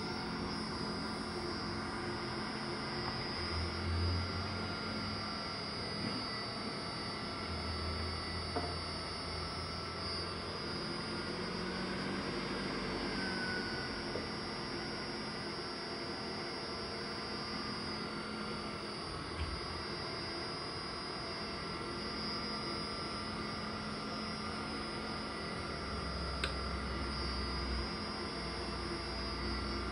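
Old microwave-oven fan driven by a 0.5 hp three-phase electric motor on a frequency inverter, running steadily with a constant hum and rush of air. Its pitch shifts slightly as the PID controller varies the fan speed to hold the ball's height.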